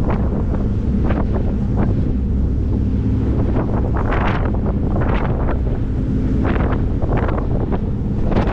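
Wind buffeting the microphone aboard a moving ferry, with the ferry's engines droning steadily underneath and irregular rushes of noise coming and going.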